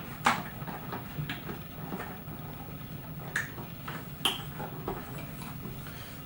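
Scattered light clicks and taps of drive cables being handled and plugged into ports in a server, the sharpest just after the start and about four seconds in, over a steady low hum.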